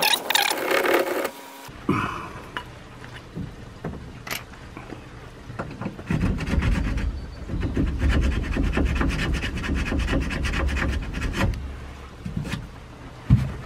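Small hand saw rasping back and forth inside a plastic sewer pipe fitting, cutting slits into the old pipe end glued in the Y fitting. A few scattered strokes at first, then a long run of quick, even strokes through the middle.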